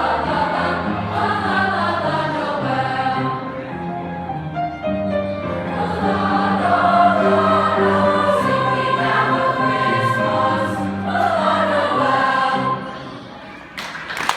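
A junior high show choir singing a Christmas song together, the final phrase ending about a second and a half before the end, followed by a short quieter stretch and a sharp click.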